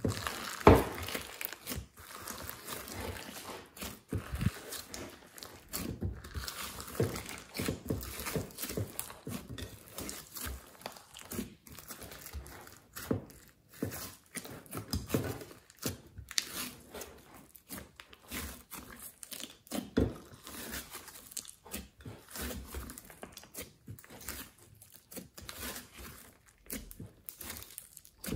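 Hands squeezing, stretching and tearing a large mound of fluffy slime mixed with clay and glitter, making irregular sticky crackles and clicks throughout.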